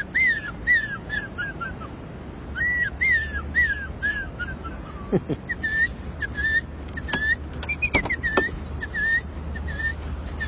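A man whistling imitation bird calls. There are two runs of short chirping notes, each run falling in pitch, then a string of evenly repeated short chirps.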